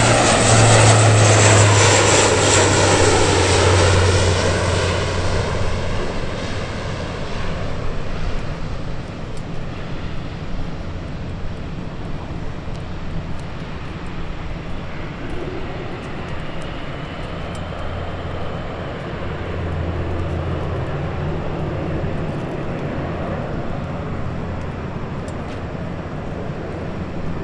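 Four Rolls-Royce AE 2100D3 turboprop engines and propellers of a C-130J-30 Super Hercules passing low and close. The drone drops in pitch as the aircraft goes by, then fades over the next several seconds to a steadier, more distant drone as it climbs away and banks.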